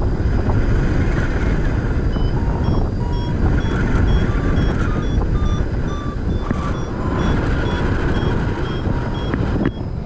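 Strong wind buffeting the microphone during a paraglider flight, with a variometer giving short, rapid beeps that shift in pitch, its climb signal as the glider gains height.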